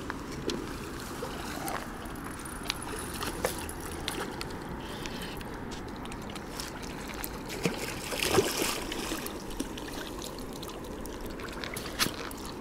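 Water splashing and trickling as a hooked carp thrashes at the surface close to the bank and is drawn into a landing net, with small clicks throughout and a louder splash about eight seconds in.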